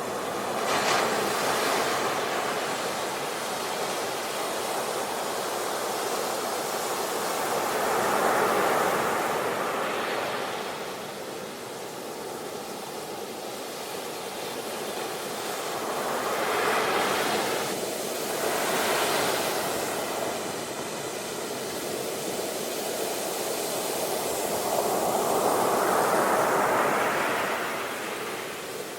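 Ocean waves breaking and washing ashore: a steady rushing hiss that swells and fades in slow surges, louder about a second in, around eight seconds in, twice past the middle, and again near the end.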